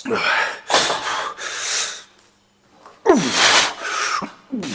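A lifter's forceful breaths and grunts as he strains through heavy reps on a plate-loaded chest press machine: about five loud blasts of breath, some with a short falling vocal grunt, with a pause of about a second in the middle.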